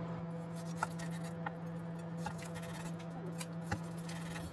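A cleaver slicing through a fried meat roll, its blade knocking on a wooden cutting board four times, the last knock the loudest, over a steady low hum.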